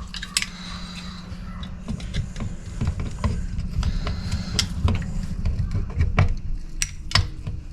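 Scattered metal clicks and clinks of hand tools and hydraulic valve parts being worked apart, over a steady low hum.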